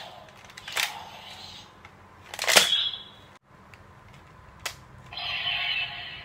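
Plastic clicks from a DX Kaliburn toy sword as a Wonder Ride Book is slotted in and worked; three sharp clicks, the loudest about two and a half seconds in. About five seconds in, the sword's small speaker starts playing its electronic sound effect.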